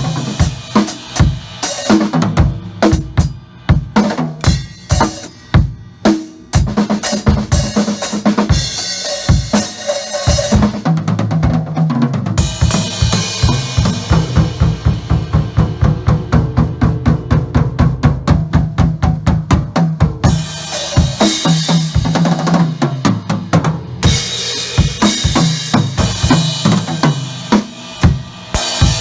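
Acoustic drum kit played solo: fast strokes on snare, toms and bass drum with cymbals. Through the middle the cymbals drop out for a long, fast, even run of tom strokes, and the cymbals come back in after it.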